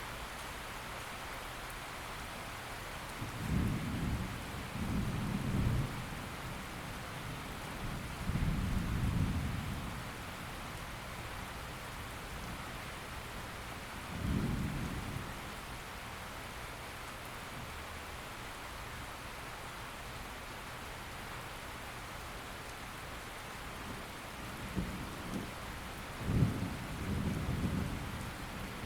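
Steady rain hissing, with several low rolls of thunder rumbling through it; the loudest rolls come in a cluster near the end.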